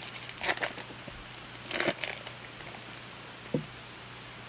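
Trading cards being handled and slid off a pack stack, two short rustles in the first two seconds, over a steady faint electrical hum.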